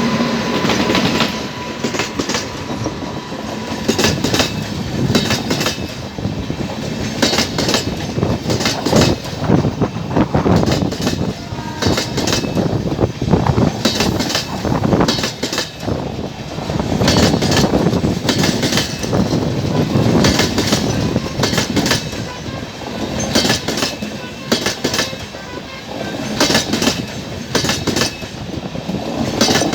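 Passenger train's LHB coaches rolling past as it pulls out, the wheels clicking over the rail joints in repeated clickety-clack pairs over a steady rumble.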